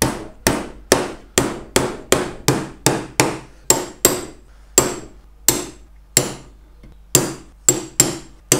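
Hammer driving 2-inch lost-head nails into the jointed wooden walls of a beehive super: a steady run of sharp blows, about two a second, with brief pauses between nails.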